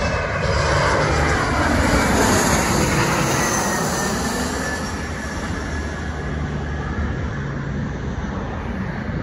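American Eagle CRJ-701ER regional jet (CRJ700) with its two rear-mounted General Electric CF34 turbofans passing low overhead on final approach. A loud jet roar peaks about two seconds in, its whining tones falling in pitch as it goes by, then slowly fades.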